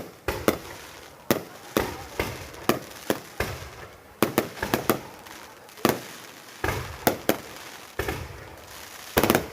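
Fireworks going off: a string of sharp bangs at irregular intervals, some close together, with a quick flurry of bangs near the end.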